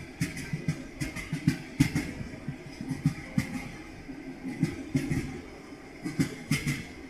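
Railway carriage wheels clattering over rail joints: clusters of sharp knocks, one after another, about every second or so, over a steady rolling rumble.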